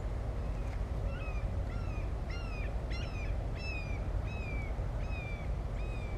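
A bird calling over and over, short falling notes about two a second, over a steady low background rumble.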